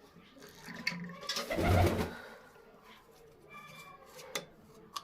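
Pigeons cooing in a loft, low soft coos, with a louder burst of rustling about a second and a half in.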